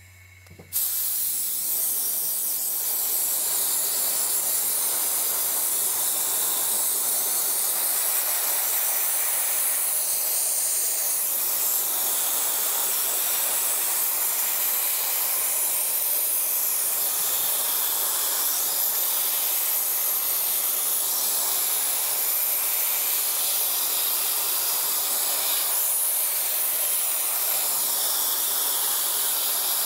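Dry ice blasting gun firing a continuous jet of compressed air and dry ice pellets into the lug-nut holes of an alloy wheel: a steady, loud hiss that starts about a second in.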